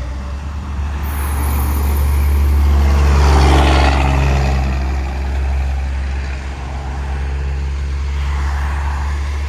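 A Kenworth semi truck passing by, its noise swelling to a peak about three and a half seconds in and then fading, over a steady low engine drone.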